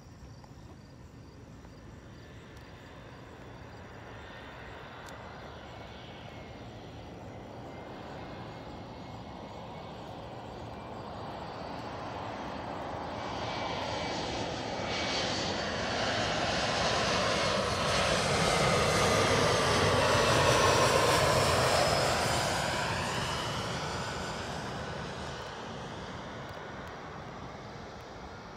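Jet airliner flying over: its engine roar builds slowly to a peak about three-quarters of the way through, with a whine that falls in pitch as it passes, then fades away.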